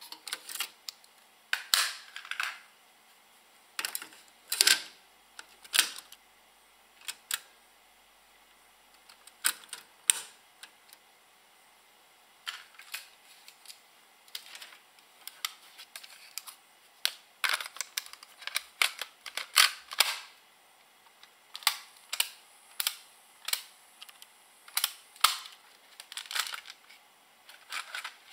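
JVC KD-X2 cassette deck's soft-touch transport buttons, cassette door and tape mechanism clicking and clunking as it is operated and a cassette is swapped: a long run of sharp mechanical clicks at irregular intervals, some in quick pairs, with short quiet gaps.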